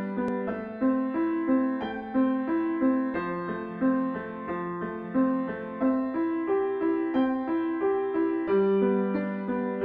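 Keyboard piano playing a slow, gently repeating melody of single notes over held low notes, with no drums or voice: the instrumental intro of a song.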